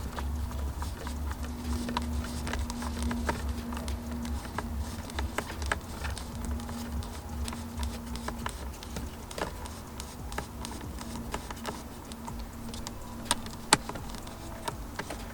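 Irregular light clicks and taps of a hand tool working the Torx T30 screws behind a steering wheel to release the airbag, over a steady low hum.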